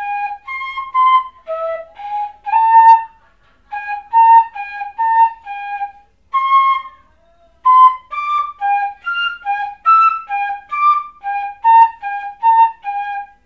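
Pífano in C, a Brazilian side-blown cane fife, playing a melodic passage of short, separate notes with brief breaks between phrases. The passage uses half-holed D and F fingerings.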